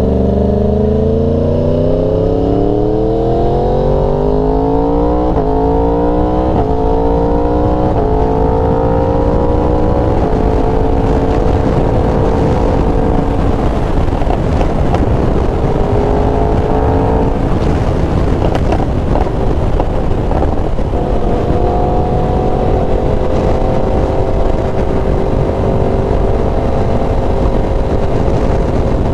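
Yamaha R1 sport bike's inline-four engine accelerating hard, its pitch climbing and dropping back at each of three quick upshifts in the first eight seconds or so, then running at a steady cruise with wind rush, easing off briefly a little past the middle.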